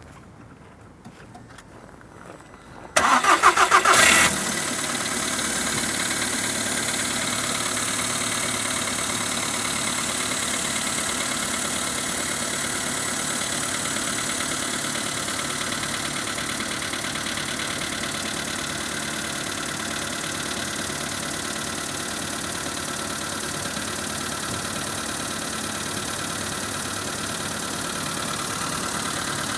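VW Polo Sedan's four-cylinder petrol engine cranked and started about three seconds in, flaring briefly and then settling into a steady idle. The owner hears a knock in this idle that was not there when the car was new, while the dealer's mechanic says it runs normally.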